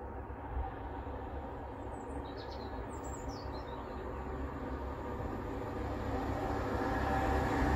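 Network Rail Class 73 locomotives approaching with their train, the sound of the train growing steadily louder throughout. A few short bird chirps come about two to three seconds in.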